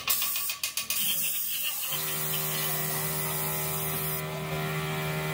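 Short hissing spurts, then about two seconds in a workshop machine starts running with a steady hum and hiss.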